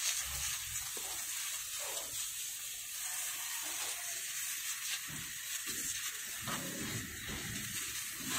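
Spray canister's wand misting liquid foliar fertilizer onto leaves: a steady, even hiss of fine spray.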